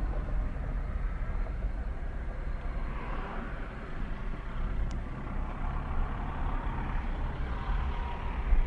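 Car engine and tyre noise heard from inside a moving car's cabin: a steady low rumble with a hiss that swells twice.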